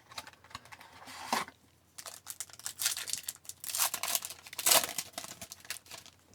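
A hockey card pack wrapper being torn open and crinkled: a run of short tearing and crinkling rasps, loudest a little past the middle.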